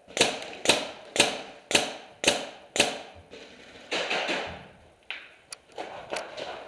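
Paintball marker firing six shots in an even string, about two a second, each a sharp pop with a short ringing tail. About four seconds in comes a longer rushing noise, then a few quicker, lighter pops near the end.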